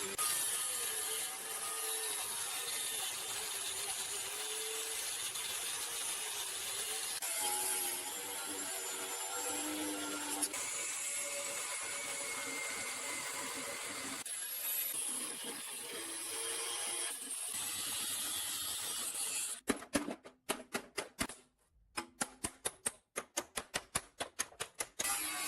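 A power tool working steadily, its pitch wavering under load, then near the end a quick series of sharp taps, about five a second.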